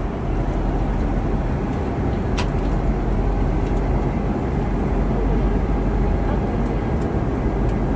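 Steady cabin noise of an airliner in flight: the constant rush of engines and airflow heard from inside the passenger cabin. A single short click sounds about two and a half seconds in.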